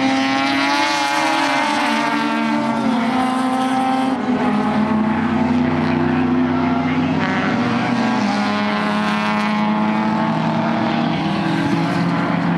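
Several Mazda RX-7 race cars' 13B rotary engines screaming together at high revs, their overlapping pitches climbing and then dropping back several times as the cars shift gears and brake for corners.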